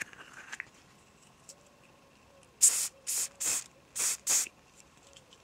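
Spray bottle spritzing hair five times in quick succession: short hissing bursts, wetting the hair before it is cut.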